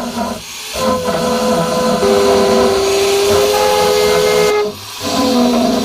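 Background music of long held notes whose chord shifts every second or so, over a steady hiss.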